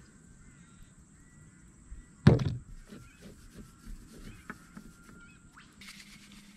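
A single sharp knock about two seconds in, as a small spice jar is put down on a plastic camp table, against faint bird chirps and a steady high whine. Near the end, a soft rattling hiss as table salt is shaken from a plastic shaker.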